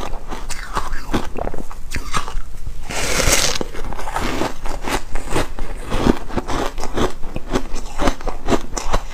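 Foam ice (airy frozen ice) bitten and chewed close up: one loud crisp bite a little after three seconds in, amid rapid crunching as the ice breaks between the teeth.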